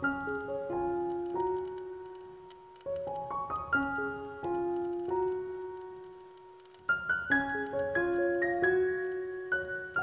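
Piano background music: phrases of notes that strike and ring away, with new phrases starting about three seconds in and again near seven seconds.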